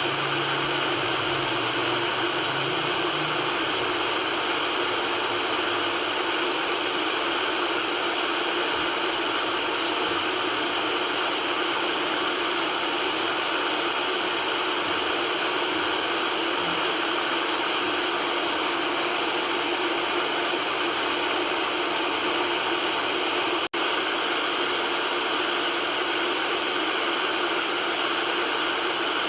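Steady white noise, an even hiss with little low bass, played as a sleep sound. It drops out for a split second about four-fifths of the way through.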